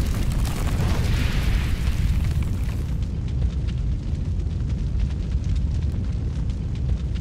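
Cinematic logo-reveal sound effects: a deep, continuous rumble with a hissing whoosh that swells over the first couple of seconds, then crackling like burning embers over the rumble.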